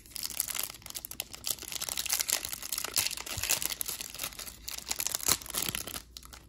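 Clear plastic wrapper crinkling and tearing as it is peeled off a stack of trading cards, a dense run of small crackles that eases off near the end.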